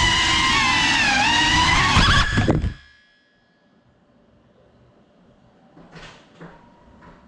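A Cinelog35 cinewhoop FPV drone's motors and ducted props whine loudly, their pitch rising and falling with throttle. About two and a half seconds in there are a few sharp knocks as the drone crashes, and the motors cut out abruptly. After that there is only faint room tone, with a couple of soft knocks.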